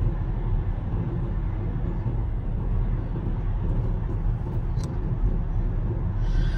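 Cabin noise of a moving Hyundai car: a steady low rumble of engine and road noise while driving.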